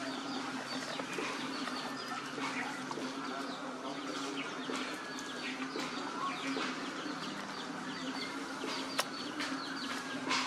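Scattered short bird chirps and calls over a steady low hum.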